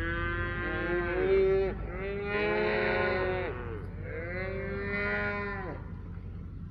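Cattle mooing: three long calls one after another, each dropping in pitch as it ends, the first with two animals calling together.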